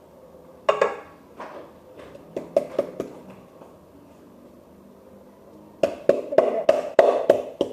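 Garlic being pounded in a kitchen mortar: a few scattered knocks, then a quick run of strikes at about four a second near the end.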